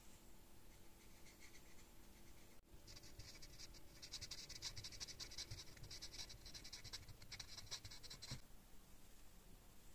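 Faint scratchy rubbing of a felt-tip marker drawn along the edge of a steel katana blank, inking the edge. It starts about three seconds in and stops sharply just past eight seconds.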